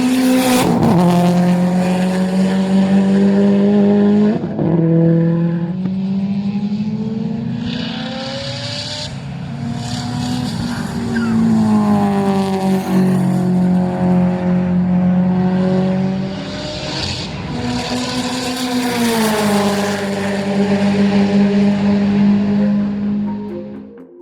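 Subaru race car's engine under hard acceleration, its pitch climbing and then dropping sharply at gear changes several times, over a rushing hiss.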